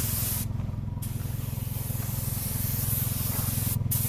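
Compressed-air paint spray gun hissing as clear coat is sprayed onto a car bumper, with the trigger released briefly about half a second in and again near the end. An air compressor hums steadily underneath.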